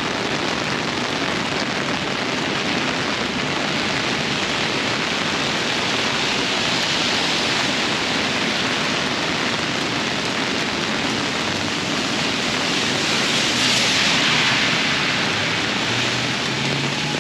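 Steady hiss of heavy tropical-storm rain, swelling briefly a little past the middle.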